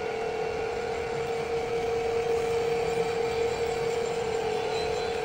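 Drill spindle running as a twist drill bores into a crankshaft counterweight, cutting metal to remove weight and correct an imbalance found on the balancing machine. A steady tone with a constant hiss of cutting, a little louder in the middle.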